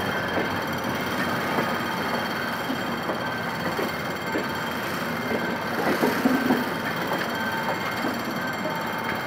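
Diesel-hauled passenger coaches rolling slowly past over a level crossing: a steady rumble of steel wheels on rails with scattered clicks over the rail joints and a thin, steady high tone on top.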